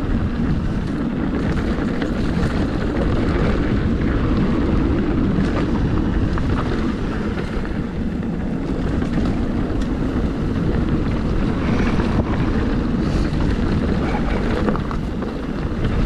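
Wind rushing over the microphone and the rumble of a mountain bike's tyres rolling down a dirt singletrack, with small clicks and rattles from the bike over the rough ground.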